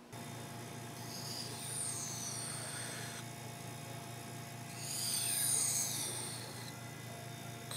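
Knife blade of high-carbon O1 steel drawn across a Japanese water stone: two long scraping strokes about three seconds apart, the second louder, with a third starting at the end, over a steady low hum.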